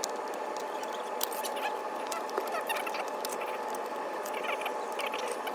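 Plastic pry card and tool working through the softened adhesive under a tablet's front glass, making small irregular squeaks, scratches and clicks over a steady background hum.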